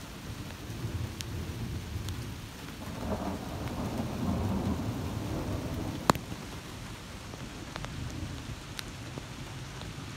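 A long rumble of thunder swells over the first few seconds and dies away about two-thirds of the way through, over steady rain. Scattered sharp drop taps sound throughout, with one loud sharp tap a little past halfway.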